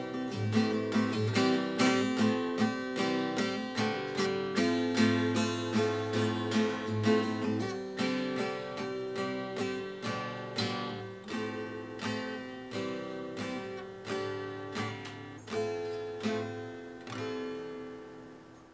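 Steel-string acoustic guitar, capoed, strummed in a repeating chord pattern, growing gradually softer until the last chord rings out and fades near the end.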